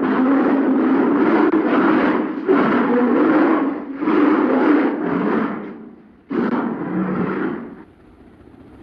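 Polar bear growling: a series of long, rough, low growls, about four bouts with brief pauses, the last dying away a second before the end.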